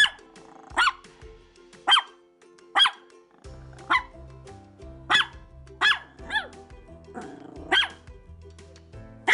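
A dog barking, short sharp single barks about once a second, about nine in all, over background music with sustained tones and a bass line.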